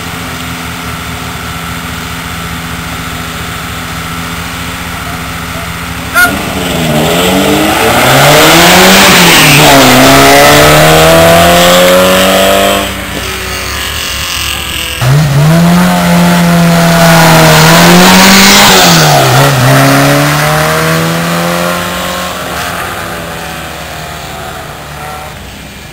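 Alfa Romeo 105-series coupé's twin-cam four-cylinder engine running at the start line, then launched at full throttle about six seconds in, the revs climbing and dropping with each upshift. A second competition car's engine then pulls away the same way about fifteen seconds in and fades up the hill.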